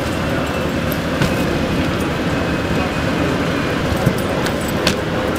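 Heavy engine running at a steady idle, a continuous low rumble with a faint steady hum, typical of fire apparatus parked at a fire scene. A few short knocks, about a second in and again near the end, come as burnt furniture is handled.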